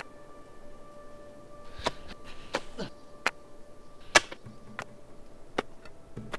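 Soft held musical tones fading away, with a scattering of sharp, irregular clicks and snaps over them, the loudest about four seconds in.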